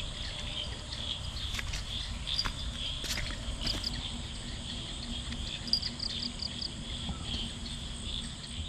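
Insects chirring steadily in a high, continuous drone, with rapid short chirps over it and a low rumble beneath.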